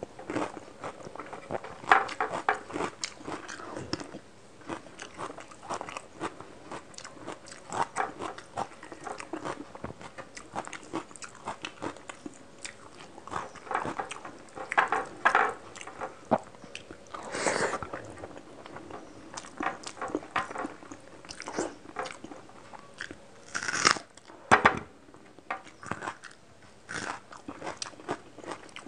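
Close-miked mouth sounds of eating rice and fish curry: steady wet chewing with frequent crisp crunches from bites of a whole raw onion, and a few louder bites near the two-thirds mark.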